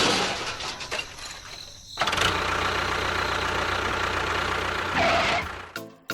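The noisy tail of a crash fades out, then about two seconds in an engine starts running steadily and stops shortly before the end.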